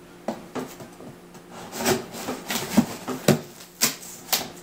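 A knife slitting open a cardboard box: a run of short, irregular scraping and rasping strokes, the sharpest in the second half.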